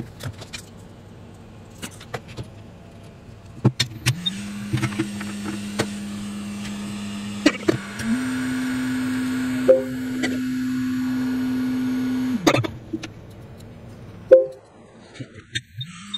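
A small electric motor spins up about four seconds in and hums steadily, steps up to a higher pitch about eight seconds in, and stops about twelve seconds in; scattered clicks and light knocks come throughout.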